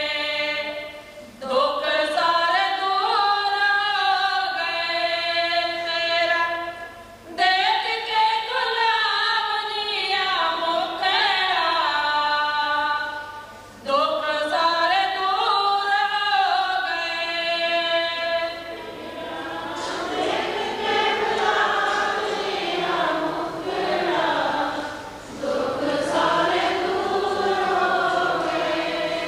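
Background music of devotional singing: sustained, gliding sung phrases with brief pauses between them, the sound growing fuller and more choral in the last third.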